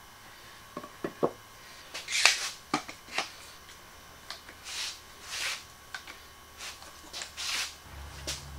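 Glued wooden boards knocking together, then one-handed bar clamps being fitted and squeezed tight on the stack: a few sharp knocks, a loud clatter about two seconds in, then a string of short rasping ratchet strokes.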